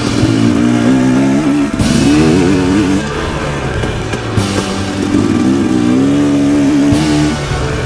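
Off-road dirt bike engine running under load on a trail, its pitch rising and falling with the throttle, with rougher, harsher passages about two seconds in and again near the end.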